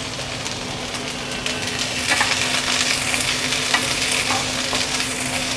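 Peas, carrots and French beans sizzling in shallow oil in a frying pan, the peas still frozen, while a wooden spatula stirs them with short scrapes against the pan. The sizzle grows a little louder about two seconds in.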